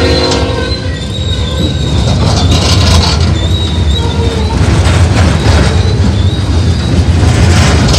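Coal hopper cars of a freight train rolling past close by: a heavy, steady rumble of steel wheels on rail, with a thin, wavering high-pitched wheel squeal that comes and goes. A locomotive horn cuts off just after the start.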